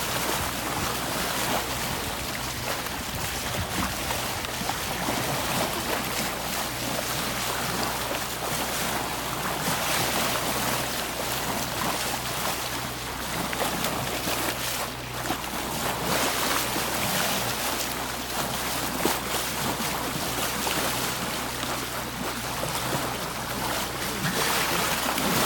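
Sea water rushing and splashing past the hull of a sailboat under way, with wind on the microphone, swelling and easing every few seconds over a faint low steady hum.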